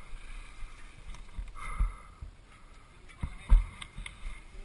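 Wind rumble and handling knocks on a helmet-mounted action camera's microphone: a low rumble with several dull thumps, the loudest about three and a half seconds in.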